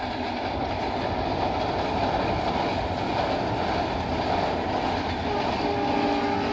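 Passenger train pulled by a Bangladesh Railway diesel locomotive running past, with a steady rumble and rattle of wheels on the rails. About five and a half seconds in, a brief steady tone at several pitches joins in for about a second.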